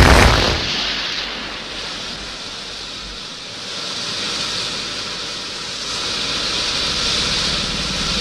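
A loud blast dies away in the first half-second, giving way to a steady rushing noise like wind that dips and then swells slightly toward the end.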